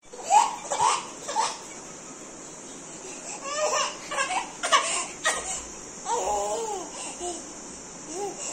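Baby babbling and squealing: three short squeals at the start, then a run of choppy babble and a longer wavering call.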